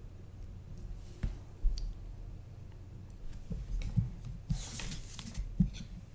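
Small electronic parts being handled and set down on a workbench mat: scattered light clicks and taps of the pliers and components, with a brief rustle of parts sliding a little past halfway. A faint steady low hum runs underneath.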